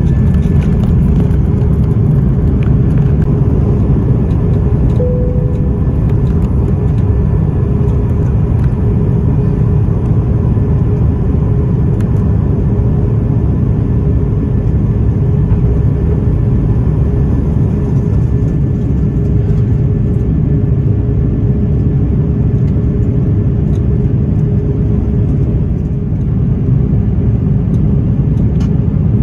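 Jet airliner's engines at takeoff power, heard from inside the cabin: a loud, steady low rumble with a held hum over it, through the takeoff and initial climb.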